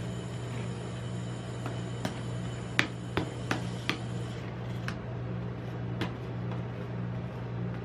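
Metal spatulas scraping and tapping on a stainless steel ice-cream cold plate as pink ice cream is spread and scored. A run of sharp clicks comes about two to four seconds in, with a couple more later, over a steady low hum.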